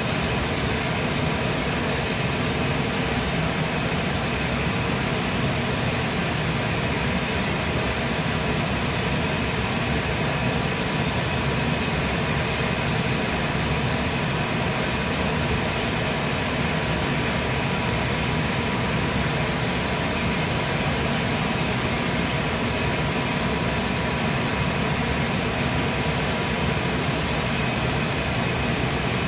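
Steady mechanical hum and hiss with a couple of faint constant tones over it, not changing in level.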